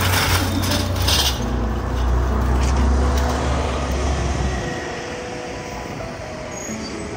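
City street traffic: the low rumble of a passing heavy vehicle that fades out about four and a half seconds in, with a rush of noise near the start.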